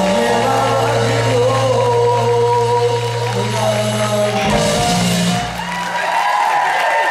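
Live rock band ending a song: a held chord over bass and drums with a singer, then a final hit with a cymbal crash about four and a half seconds in. The band stops about a second later and the crowd starts cheering and shouting near the end.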